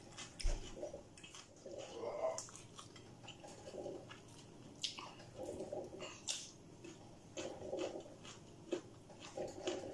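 Close-up eating sounds: chewing with scattered wet mouth clicks and soft smacks as stir-fried instant noodles and trimmings are eaten by hand.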